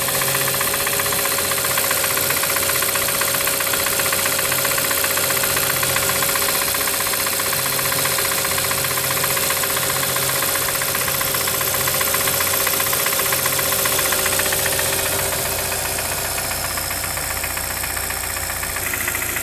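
2013 Hyundai Santa Fe engine running with a rapid, steady knock, which the owner suspects comes from a wrist pin or piston defect. It gets slightly quieter about fifteen seconds in.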